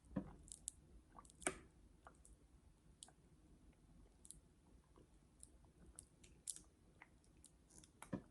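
A person eating seafood close to the microphone: faint chewing and small wet mouth clicks, with scattered sharp clicks, the loudest about a second and a half in and near the end.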